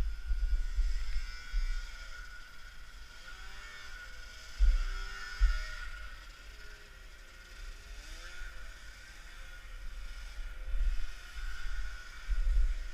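Vintage Ski-Doo two-stroke snowmobile engines running, their pitch rising and falling as the throttle changes. Low bumps hit the microphone a few times, about five seconds in and near the end.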